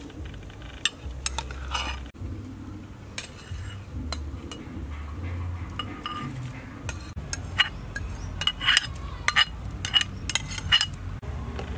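Metal ladle scraping and tapping against a ceramic bowl and the rim of a stainless-steel stockpot as grains are scraped into the pot, with a quick run of sharp ringing clinks in the second half.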